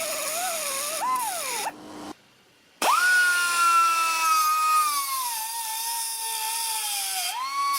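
Small high-speed cut-off tool cutting through steel frame tabs, the oil tank supports: a whining tool note whose pitch wanders and sags as the wheel bites. It stops about two seconds in, starts again after a short pause with a high whine, then drops in pitch under load.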